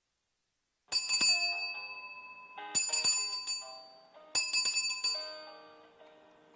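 Small altar bells rung three times, each ring a quick cluster of bright metallic strikes that rings on and fades before the next, signalling the start of Mass.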